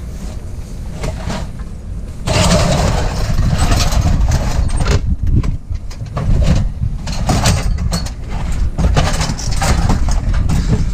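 An engine running, then from about two seconds in a louder, continuous clatter of clanks and bangs, as of scrap metal being thrown down onto the ground.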